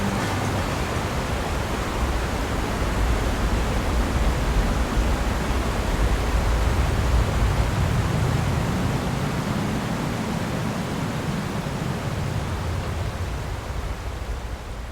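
Steady rushing outdoor ambience with no distinct events, easing off a little near the end.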